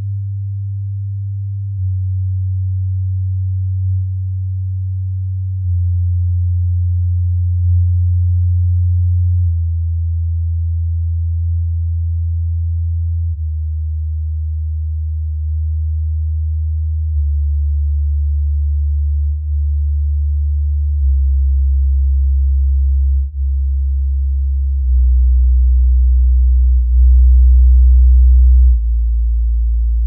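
Bass-test sine tones played through JBL LSR305 studio monitors and Audioengine A5+ powered speakers in turn. A steady low hum steps down in pitch every few seconds, from about 95 Hz to 55 Hz, and its level changes about every two seconds as playback switches between the two pairs of speakers. It is loudest at the lowest tone near the end.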